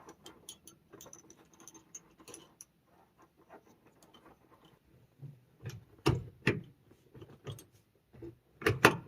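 Small metal parts of a grenade-shaped Humvee shift knob clicking and tapping as the fuse is threaded into the shift lock adapter, with a few louder knocks about six seconds in and again near the end.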